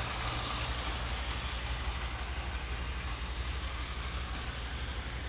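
Bachmann Gordon model locomotive running on the layout's track: a steady electric-motor hum with light wheel and rail noise.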